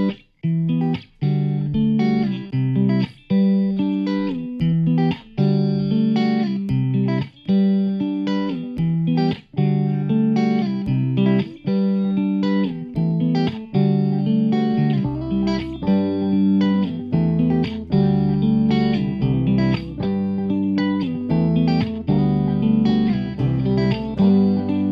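Background music: a steady run of short pitched notes in a regular rhythm, with a deeper bass part coming in partway through.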